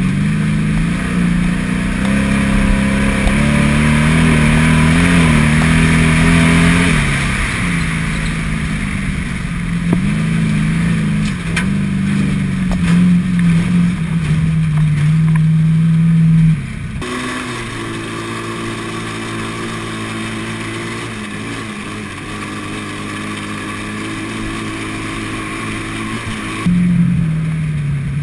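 Stock field car's engine heard from inside the open cockpit while it is driven, the engine note rising and falling as the driver gets on and off the throttle. About 17 s in it turns abruptly quieter and steadier, and it picks up again near the end.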